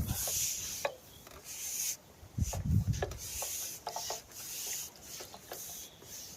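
Repeated rubbing and scraping with small clicks, and a dull knock about two and a half seconds in, from handling pole-fishing tackle.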